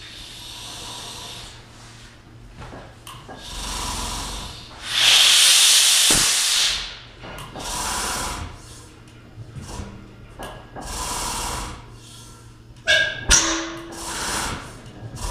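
Large old Fairbanks Morse stationary engine starting: a series of hissing puffs every two to three seconds, the loudest about five seconds in, over a low steady hum. A sharp metallic clank comes near the end.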